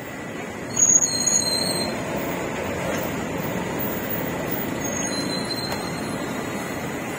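Street traffic noise, a steady rumble, with brief high-pitched squeals about a second in and again near the five-second mark.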